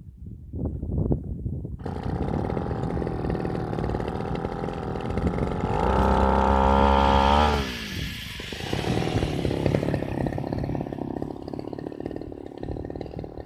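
Engine of a rice-cutting machine running, with clattering, from about two seconds in. About six seconds in it revs up to a steady high pitch, holds it briefly, then drops back quickly and runs on.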